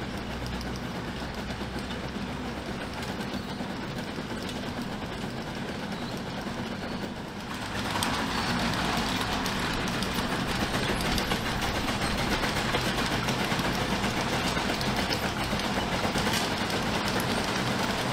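Lombard steam log hauler driving: its steam engine working with a steady rumble and rapid clanking of the machinery and crawler tracks. Steam hiss and the overall sound get louder about eight seconds in.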